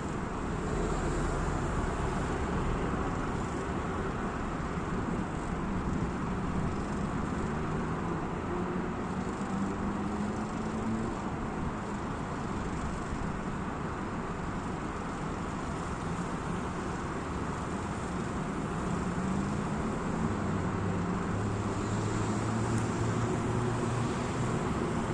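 Road traffic: a steady wash of cars going by, with engine and tyre noise. An engine note rises about ten seconds in, and a deeper engine hum comes in near the end.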